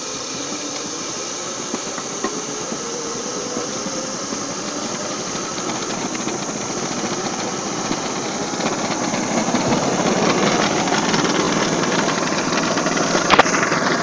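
Cable ropeway winch running steadily as it hauls apple boxes along the wire, a rough mechanical noise that slowly grows louder, with a faint rising whine in the first few seconds. One sharp click comes near the end.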